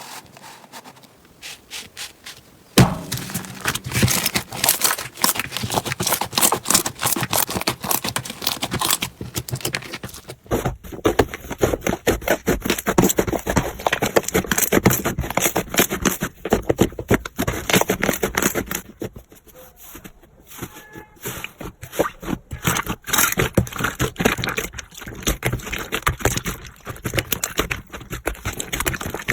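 Slime being squished and pressed by hand, making dense crackling and popping clicks. The sound changes abruptly about three seconds in and again about ten seconds in.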